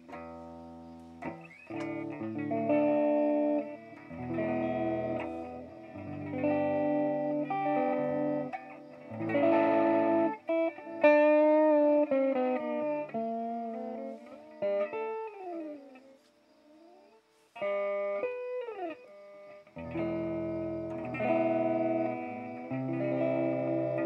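Electric guitar played through a BOSS DD-8 digital delay pedal in reverse mode: chords and single notes with backward-sounding repeats, several passages swelling up and cutting off sharply. A run of sliding notes comes in the middle, then a short lull before the playing resumes.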